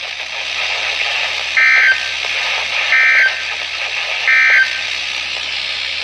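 Three short bursts of warbling digital data tones, the SAME end-of-message code that closes an Emergency Alert System broadcast, from a Midland weather alert radio's speaker. They come about a second and a half apart over steady radio hiss.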